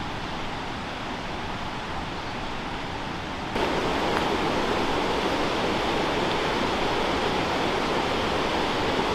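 Mountain creek rushing over rocks, a steady rush of water. At first it is fainter, then about three and a half seconds in it suddenly grows louder and brighter and holds steady.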